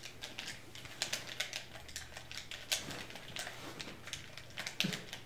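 Irregular clicking and clacking of game controller buttons being pressed rapidly, over a faint steady low hum.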